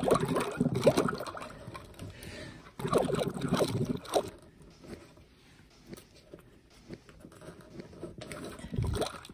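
Water sloshing and gurgling in three bursts: one at the start, another about three seconds in, and a third near the end, quieter in between.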